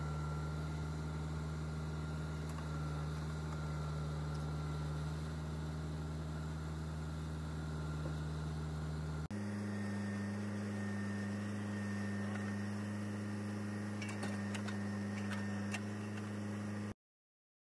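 Mahindra tractor's diesel engine running steadily while it works a tractor-mounted backhoe. About nine seconds in, the engine note changes abruptly to a different steady pitch, and there are a few light clicks near the end before the sound cuts off.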